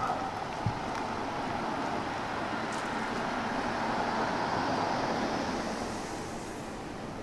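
A passing vehicle: a steady rush of road noise that swells over the first few seconds and fades near the end.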